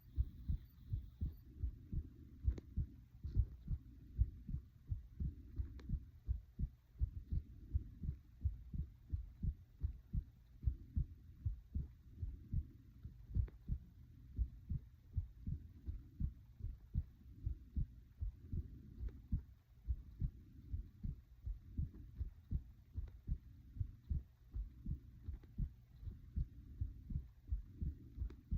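A person's heartbeat: a steady, even rhythm of low lub-dub thumps, with soft breathing swelling and fading behind it.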